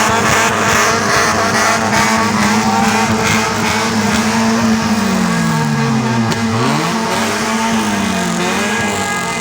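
Honda Civic engines revved hard at full throttle, the exhaust note loud and rough, then in the second half several revs falling and rising in pitch, more than one engine at once.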